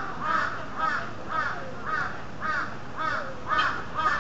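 Peafowl calling in a steady series of short calls, about two a second, each rising and falling in pitch.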